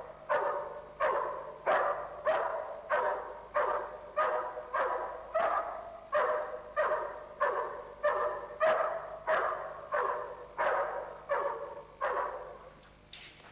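A dog barking over and over in a steady rhythm, about one and a half barks a second, tailing off and stopping near the end.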